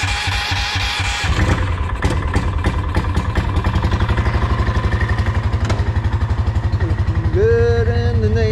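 Predator 420cc single-cylinder engine running through an open straight-pipe header, a steady rapid firing beat that evens out about a second in. A brief high wavering whine comes in near the end.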